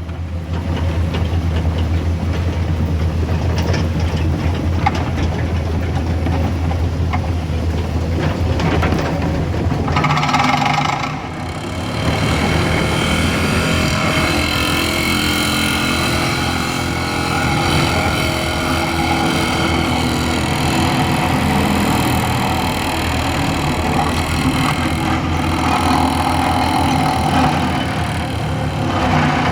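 Heavy vehicle engine running with a deep steady hum. About ten seconds in the sound changes to a busier, higher-pitched engine noise that runs on steadily.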